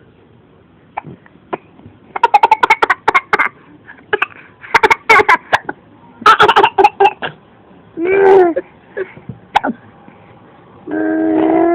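A young boy's hiccups and fake coughs come in several quick runs of short, loud vocal bursts. A brief drawn-out vocal sound follows about eight seconds in, and a longer held one near the end.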